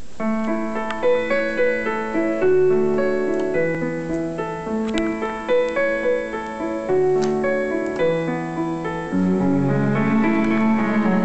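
Piano (keyboard) playing the instrumental intro of a pop song cover: a repeating figure of sustained notes over lower bass notes. About nine seconds in, the accompaniment grows fuller in the low notes.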